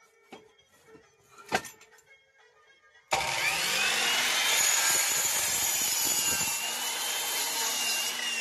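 A sharp click, then about three seconds in a SALI mitre saw's motor starts with a rising whine and its blade cuts through a wooden block, the loud steady whir and cutting noise running on for about five seconds before easing off at the end.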